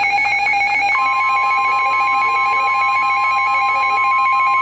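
Emergency alert tones: a loud electronic signal that switches back and forth between pitches, joined about a second in by a steady single-pitch alarm tone like the 1050 Hz NOAA Weather Radio warning tone that comes before a severe thunderstorm warning.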